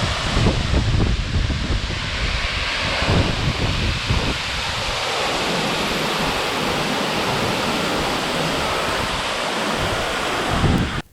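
Waterfall rushing: a steady, loud wash of falling water, with wind buffeting the microphone in roughly the first five seconds.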